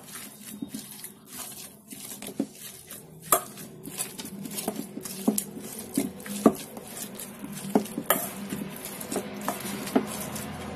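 Boiled vegetables being mashed with a drinking glass in a steel bowl: irregular knocks and clinks of the glass against the bowl, a few of them louder.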